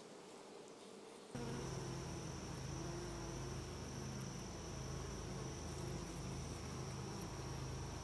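Honeybees buzzing on an open brood frame, the buzz jumping abruptly louder about a second in and then holding steady, with a thin steady high whine above it.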